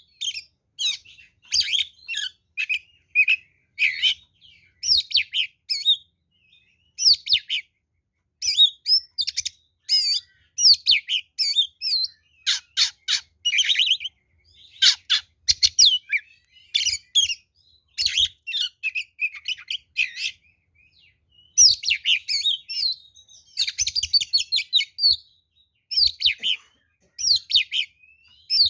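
Oriental magpie-robin (kacer) in full, fighting-mood song: phrase after phrase of varied high whistles and fast chattering notes, with short gaps between the bursts.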